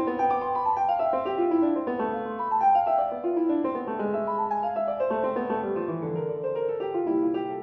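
Background piano music: a flowing run of quick notes, gentle and unaccompanied.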